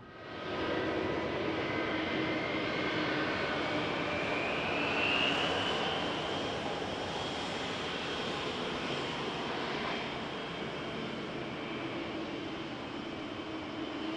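Airbus A220-300's Pratt & Whitney PW1500G geared turbofan engines running while the airliner taxis: a steady jet rush with a high whine that rises in pitch over the first few seconds and then holds steady.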